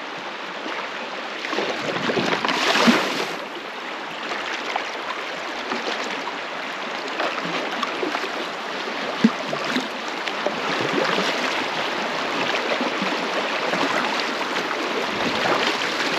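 Shallow creek water rushing and babbling over riffles around a kayak drifting downstream, with a louder rush of water about three seconds in and a single sharp knock about nine seconds in.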